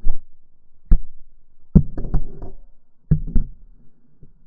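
Corgi puppy mouthing the camera, its teeth and muzzle knocking and rubbing against it up close: a string of sharp, muffled knocks in small clusters, with dull scuffing between them.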